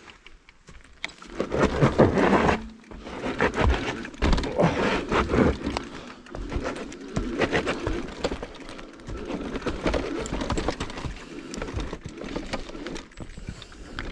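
Irregular crunching, knocks and rattles of a mountain bike moving over a rooty forest trail, loudest about two seconds in.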